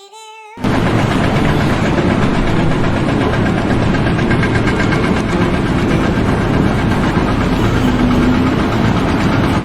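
A loud engine or heavy machine running steadily, cutting in abruptly about half a second in.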